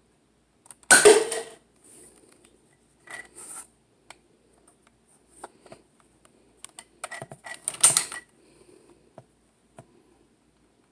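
Plastic clicks and clacks of a Nerf blaster and its clip being handled, with a loud clunk about a second in and another near eight seconds, and scattered smaller clicks between.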